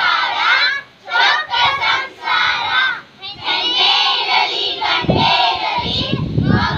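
A group of children shouting together in high voices, in several loud stretches with short breaks between them. About five seconds in, a low rumble joins them.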